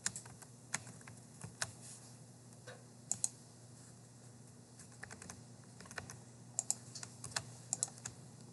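Irregular clicks of computer keys and a mouse, some in quick pairs, over a faint steady low hum.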